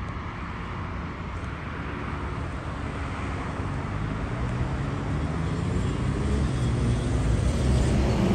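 Road traffic passing along a main road, with a bus engine growing louder and rising in pitch over the last few seconds as the bus pulls away from the stop.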